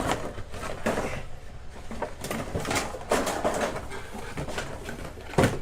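Plastic packaging and a plastic action figure being handled: irregular crinkling and clicking, with a sharp knock near the end.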